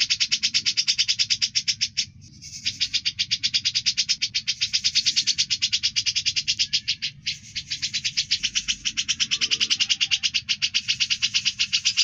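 A songbird's besetan: a long, sharp, rapidly pulsed rasping trill, high-pitched, broken briefly about two seconds in and again about seven seconds in, played as masteran training audio for songbirds.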